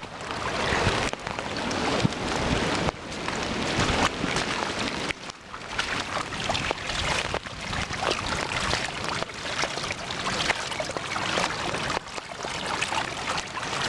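Fast-running floodwater rushing through a swollen river, a steady noisy rush whose level jumps abruptly every second or two.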